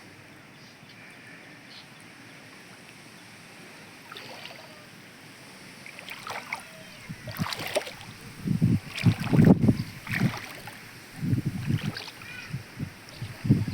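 Water sloshing and splashing, faint at first, then irregular louder splashes from about six seconds in.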